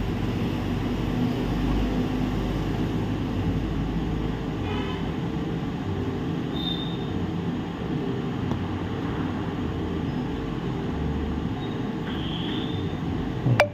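Steady low mechanical hum with a few fixed humming tones, the running background of a repair bench. There is a sharp click near the end.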